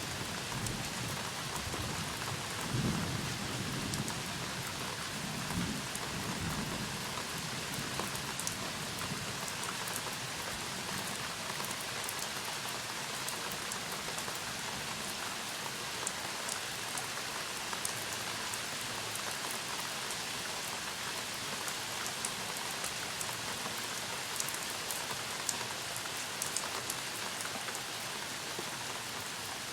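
Thunderstorm: steady rain falling throughout, with scattered sharp drop ticks. A low roll of thunder rumbles through the first several seconds, then dies away.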